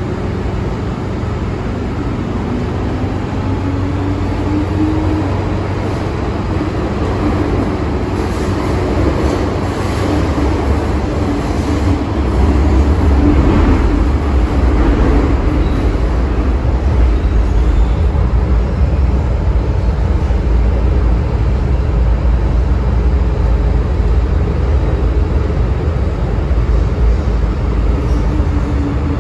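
MTR M-Train metro carriage running through a tunnel, heard from inside: a steady rumble of wheels on the track, with a motor whine that rises in pitch a few seconds in. The rumble grows louder about twelve seconds in.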